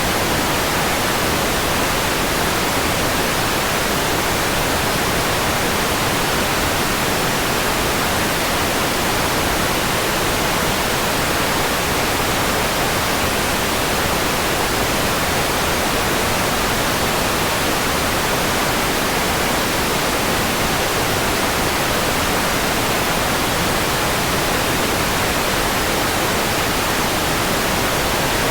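Steady synthetic white noise: an even, unchanging hiss across the whole range, with no breaks or events.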